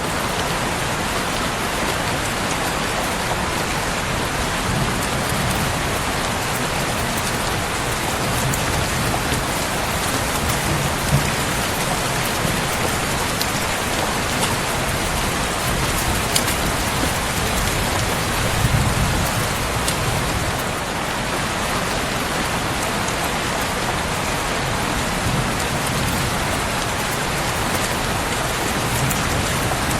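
Steady rain falling on a surface, with a few sharp crackles and low rumbles now and then.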